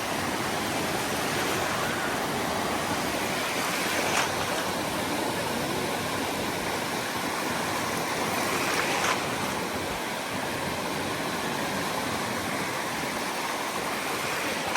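Ocean waves washing in a continuous rush, with a slightly louder surge about four seconds in and another about nine seconds in.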